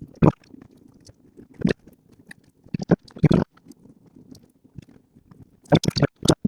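Scattered short crunching and scraping sounds of packed casting sand being cut and worked, with a cluster of several quick ones near the end.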